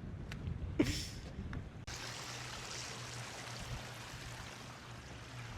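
Wind rumbling on the microphone. From about two seconds in, after an abrupt change, a steady rush of flowing water.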